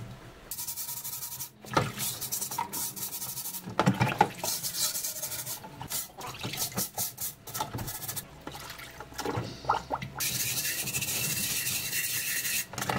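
Scouring pad scrubbing the rusty ribbed steel of a gas mask canister in a tub of water: irregular rough rubbing strokes with wet sloshing, turning into steady continuous scrubbing near the end.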